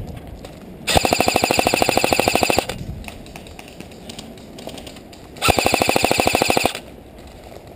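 Airsoft AKS-74 electric rifle firing two full-auto bursts. The first lasts nearly two seconds and starts about a second in; the second is shorter and comes about five and a half seconds in. Each burst is a rapid, even rattle of shots over the whine of the gearbox.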